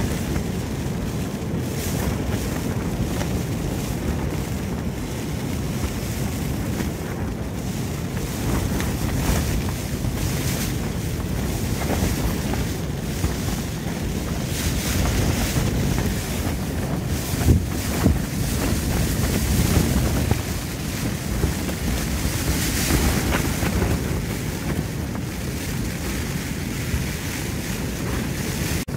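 Strong gusting wind buffeting a single-skin tent, the fabric flapping and shaking in surges, with two louder slaps a little past halfway.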